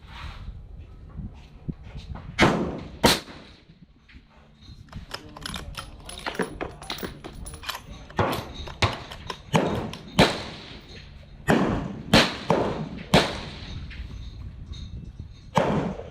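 Rifle shots at a shooting range: a string of sharp cracks at irregular intervals, about seven loud shots and several fainter ones between them.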